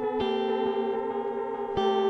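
Electric guitar, a Squier Affinity Telecaster, played through an Earthquaker Devices Space Spiral modulated delay pedal. A chord struck just after the start rings on with faint, evenly spaced delay repeats of the pick attack, and a new chord is struck near the end.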